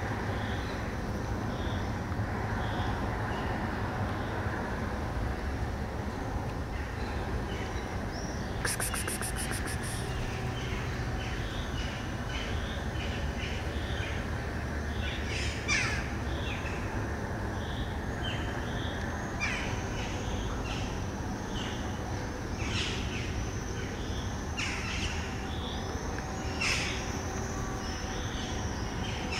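Outdoor ambience of birds calling: many short high chirps and a few quick falling calls, with a brief rapid rattle about nine seconds in, over a steady low background rumble.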